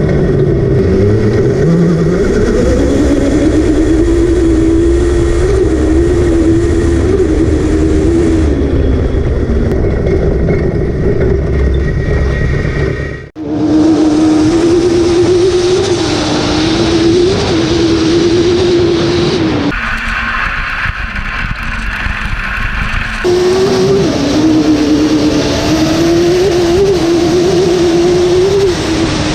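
A motorcycle-engined rail buggy's inline-four running hard at high revs, its pitch wavering up and down with the throttle. The sound drops out abruptly for a moment about 13 seconds in, then picks up again. It turns thinner and different for a few seconds around 20 to 23 seconds in.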